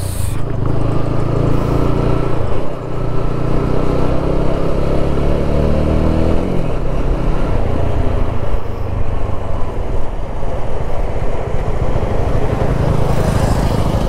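TVS Apache RTR 200 4V's single-cylinder engine pulling away and accelerating, its pitch rising, with a short dip at a gear change about three seconds in. From about six seconds in, wind rushing over the helmet microphone mixes in with the running engine.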